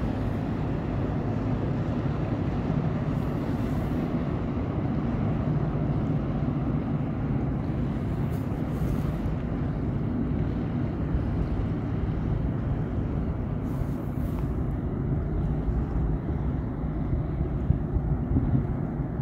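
Steady low drone of a passing inland cargo barge's diesel engine, with wind buffeting the microphone.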